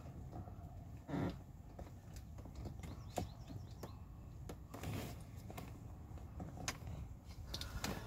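Quiet, scattered clicks and small plastic knocks from hands pressing release tabs and pulling at the ignition switch's lock cylinder part in a steering column. The part is stuck and will not come out.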